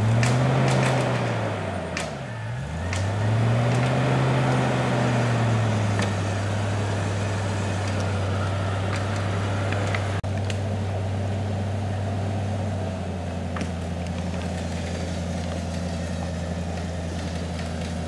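Land Rover Discovery 2's engine under load on a steep, slippery climb with a winch line attached, revving up and falling back twice, then running at a steady speed that drops slightly near the end.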